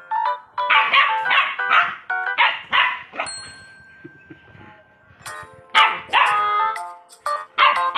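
Dogs barking and yapping in quick runs as they play, with a quieter stretch of about two seconds in the middle.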